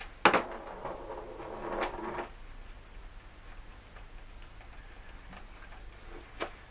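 Socket ratchet clicking while the pump-plate bolts of a ZF 5HP18 automatic gearbox are undone. There is a sharp metallic click just after the start, a rattly stretch of ratcheting for about two seconds, and a few lighter ticks and one more click near the end.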